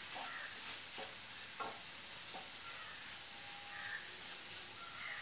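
A spatula stirring carrot and coconut stir-fry in a non-stick pan, the food sizzling softly, with a few short scrapes and taps of the spatula against the pan in the first half.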